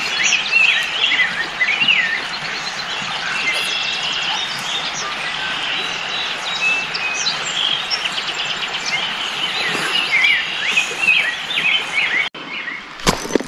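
Several songbirds chirping and singing over a steady outdoor hiss. Near the end the sound cuts out briefly and a few sharp knocks follow.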